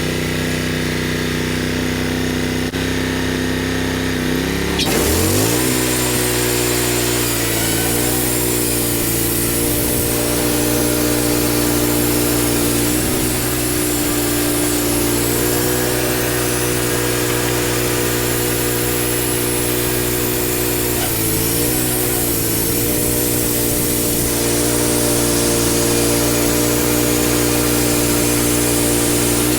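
Wood-Mizer portable band sawmill running, its engine speeding up sharply about five seconds in along with a louder hiss from the band blade. It then runs steadily, the pitch sagging briefly a few times as the blade cuts through the maple log.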